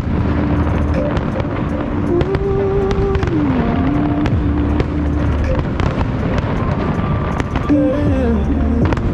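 Fireworks going off in irregular sharp bangs and crackles over instrumental music with a held, gliding melody.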